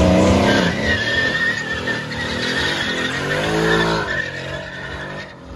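Mercedes-AMG C63's V8 revving hard while its rear tyres spin and squeal through a smoky donut. The engine note climbs and falls near the start and again about three seconds in, with a steady tyre screech between, then fades near the end.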